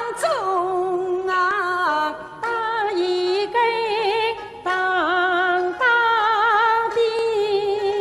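A woman singing a Yue opera melody solo, in short phrases of long held notes with wide vibrato and sliding pitch.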